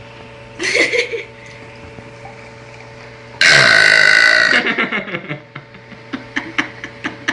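A girl belching: a short burp about half a second in, then a long, loud belch from about three and a half seconds in that lasts about a second and trails off.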